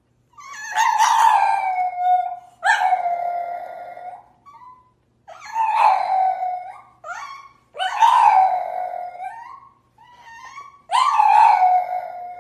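A small flat-faced dog howling with its head thrown back: five long howls, each sliding down in pitch, with short yelps between them.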